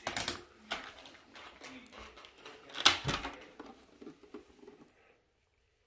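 Handling noises from a Shark upright vacuum's dust cup: a few clicks and rustles with one louder knock about three seconds in, with the vacuum motor not running.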